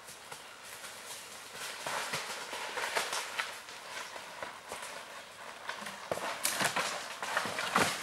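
Hooves of an unshod Tennessee Walking Horse mare stepping through dry leaf litter and twigs, a run of crunches and crackles that grows louder around two seconds in and again from about six seconds.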